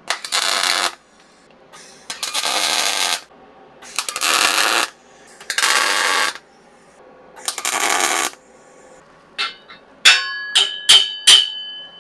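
Steel frame being tack-welded: five short arc welds about a second long each, crackling and hissing, with pauses between them. Then a quick run of sharp metallic clinks that ring briefly, from steel parts being knocked against each other.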